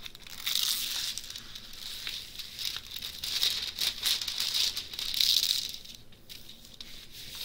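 Clear plastic protective film on a diamond painting canvas crinkling and rustling as it is lifted and handled, in several surges that die away about six seconds in.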